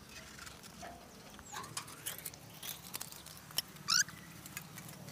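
Faint, sparse clicks and light scrapes of hand work on a metal guide rule, its tie wire and a plumb line, over a faint low hum. A short, high rising chirp comes about four seconds in.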